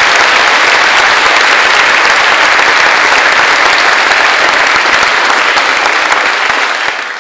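Audience applauding, a loud dense clapping that dies away near the end.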